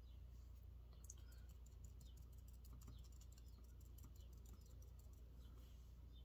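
Near silence with a steady low hum, broken by faint, rapid light clicks and taps for a few seconds starting about a second in, with faint bird chirps.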